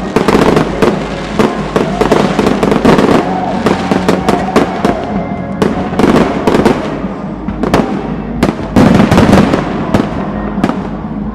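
Fireworks display: a dense, continuous run of bangs and crackling bursts, loudest in flurries about three seconds in and again about nine seconds in, with music playing underneath.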